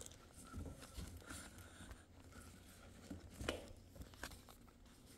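Faint rustling and a few soft knocks from a phone being handled and moved against clothing, the loudest knock about three and a half seconds in.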